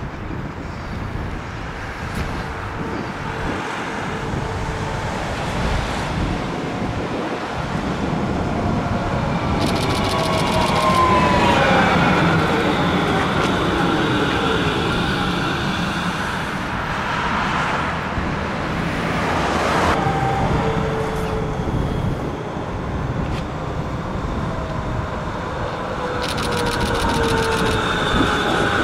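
Modern low-floor electric trams moving through a stop: the traction drive whines, rising and falling in pitch as one tram pulls away and another rolls in braking, over a steady rumble of wheels on rail.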